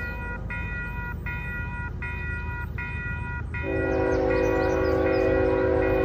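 Railroad crossing's WCH electronic bell ringing in even strokes, a little over one a second. About three and a half seconds in, an approaching locomotive's air horn starts a long, loud chord that holds over the bell.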